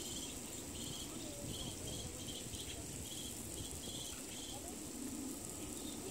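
Insects chirping and droning in summer trees: a steady high buzz, with a run of short chirps two or three a second that stops about four and a half seconds in, over a low background rumble.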